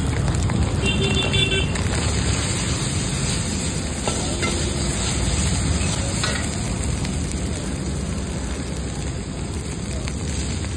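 Chopped vegetables sizzling in a hot wok as a steel ladle stirs and tosses them, with a few clinks and scrapes of the ladle against the wok, over a steady low rumble.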